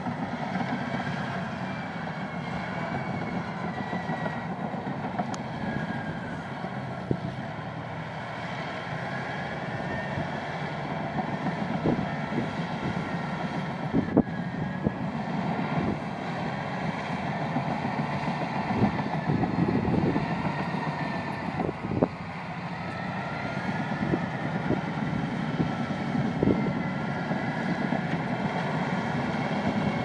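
Caterpillar D9 bulldozer working: its diesel engine runs steadily under load, the steel tracks clank now and then, and a high wavering whine comes and goes.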